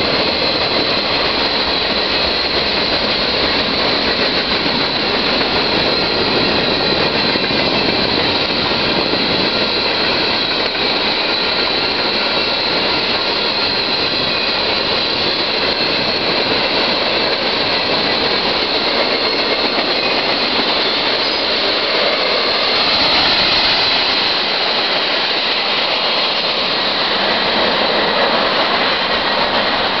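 Freight cars of a Union Pacific mixed freight train rolling by on the rails: a steady loud rush of wheels on track, with a thin high steady whine from the wheels running through it.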